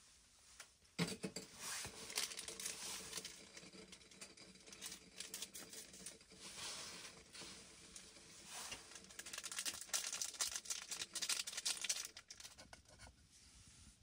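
A small plastic food packet being torn open and crinkled in the hands: a dense crackle of rustling plastic that starts sharply about a second in and stops about two seconds before the end.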